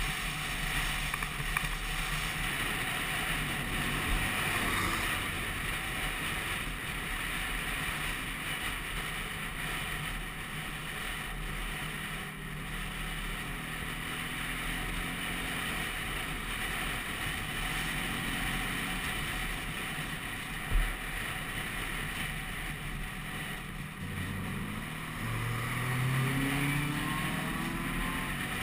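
Vespa PX200 scooter's two-stroke single-cylinder engine running on the move, mixed with wind noise on the microphone. A single short thump comes about two-thirds of the way through, and near the end the engine pitch rises as it revs up.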